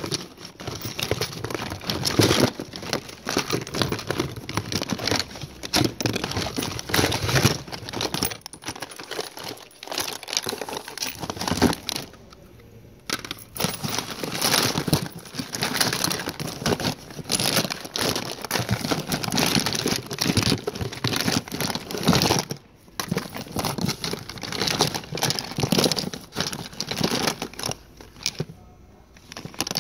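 Crinkling and rustling of plastic-packaged cosmetics being handled and rummaged through in a box, with irregular crackles and clicks. The sound pauses briefly a few times.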